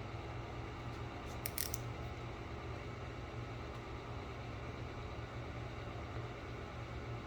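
Steady low machine hum, with a quick cluster of sharp clicks about one and a half seconds in.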